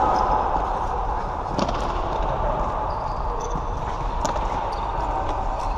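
Floorball play on a hard sports-hall floor: running footsteps and the hall's steady echoing noise, with a few sharp knocks from sticks and ball.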